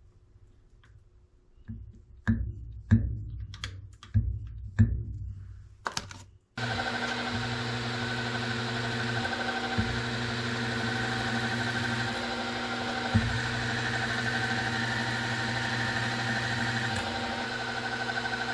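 Several sharp knocks and clicks, then a milling machine's motor and spindle come on abruptly, about six seconds in, and run steadily with a whine of several steady tones.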